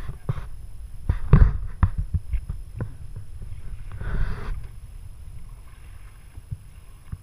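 Steady low rumble on a charter fishing boat at sea, with several sharp knocks and bumps in the first few seconds and a brief hiss of noise about four seconds in.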